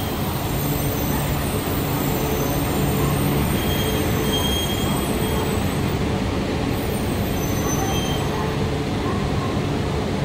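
E4 series Max double-decker Shinkansen standing at the platform, giving off a steady hum over an even rushing noise.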